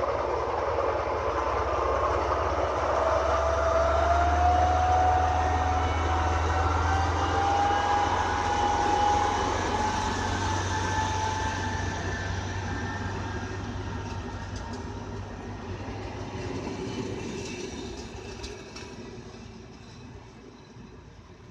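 ČD class 854 diesel railcar and its train accelerating away: a low diesel engine hum and a rising whine that climbs for several seconds as the train gathers speed. The sound then fades as the train recedes, with faint wheel clicks over the rail joints near the end.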